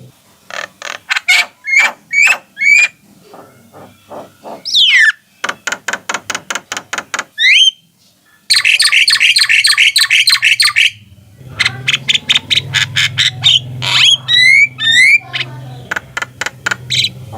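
Javan mynas calling: quick runs of harsh, evenly spaced notes broken by short rising whistles, with a dense stretch of chattering about halfway through. A steady low hum comes in under the calls for the last third.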